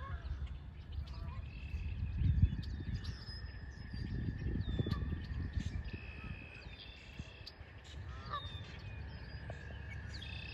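Several birds calling and singing, with short whistled notes repeating again and again and a few lower swooping calls, over a low rumble that swells in the first half.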